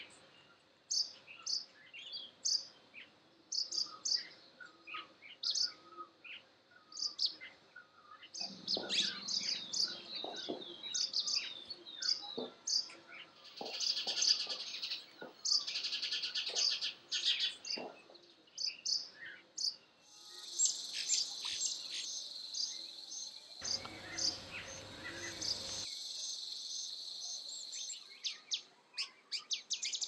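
Small birds chirping, many short high calls in quick irregular runs. About twenty seconds in, a steady high-pitched buzz joins under the chirps and holds for several seconds before stopping.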